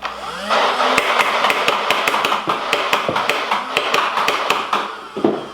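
Nerf Rival Nemesis MXVII-10K, a battery-powered flywheel blaster, spinning up with a rising whine and then firing foam balls in a rapid string of sharp shots, about five a second, over the steady hum of its motors. The firing stops shortly before the end.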